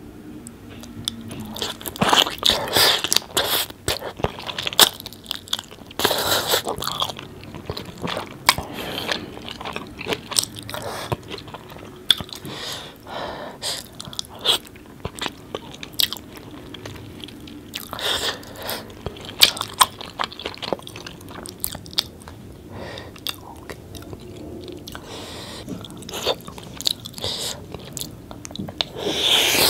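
Close-miked chewing and wet mouth sounds of someone eating curry-dipped food and spiced rice, with irregular smacks and clicks coming in bunches.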